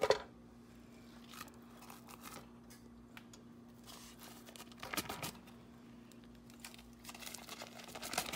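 Paper patty separators crinkling and tearing as they are peeled off raw hamburger patties, with a knock at the start as a patty is set into the nonstick pan. A faint steady hum runs underneath.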